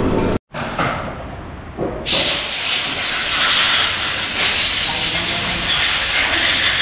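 Loud steady hiss of a high-pressure jet, beginning about two seconds in after a sudden cut and a quieter stretch.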